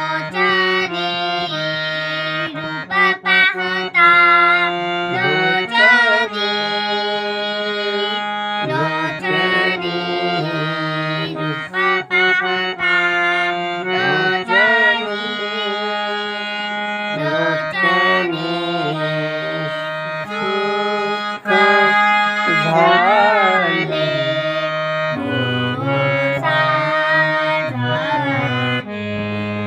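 Harmonium playing a devotional melody over a steady held drone, with a voice gliding and holding notes above it at times.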